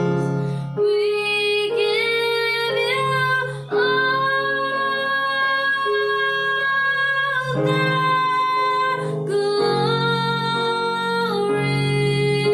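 Worship music: a woman singing long, held notes over instrumental accompaniment that includes guitar.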